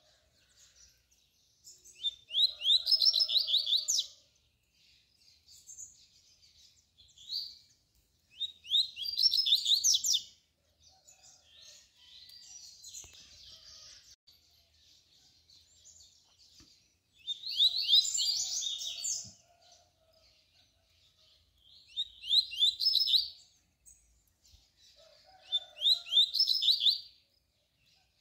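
Male double-collared seedeater (coleiro) singing a tui-tui type song: five loud phrases of rapid, sweeping high notes, each lasting one and a half to two seconds, with fainter twittering in the gaps.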